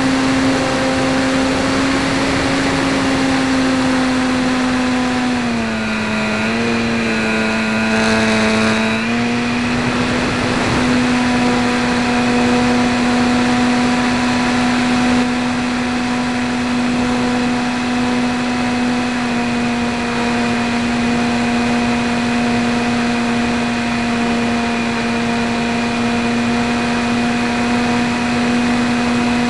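Electric RC trainer plane's E-flite 450 brushless motor (860kv) spinning a 10x5 propeller, heard from the plane itself in flight: a steady buzzing drone over a hiss. The pitch dips for a few seconds at about six seconds in, as the motor slows, then rises back to its earlier note.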